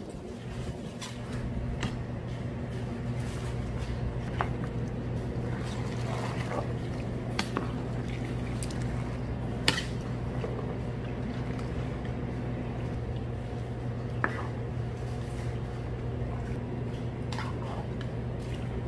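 Wet, squishy kitchen sounds of thick tteokbokki sauce being worked, over a steady machine hum, with a dozen or so sharp clicks and clinks scattered through; the sharpest comes about ten seconds in.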